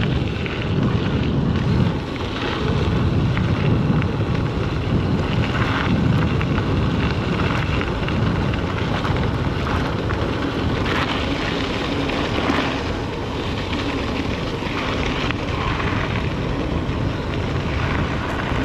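Steady wind noise buffeting the microphone, with a low rumble, as from a mountain bike ridden at speed; it cuts in suddenly at the start.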